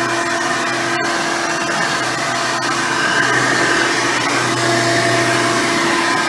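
Hoover Elite 350 upright vacuum cleaner running steadily on its 7-amp motor with a seven-blade fan, giving an even motor hum with a few held tones.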